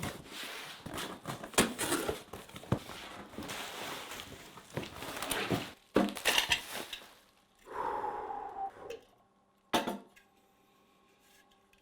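Irregular clattering, clicks and knocks of hard objects being handled in a small room, with a short falling tone about eight seconds in and quieter gaps near the end.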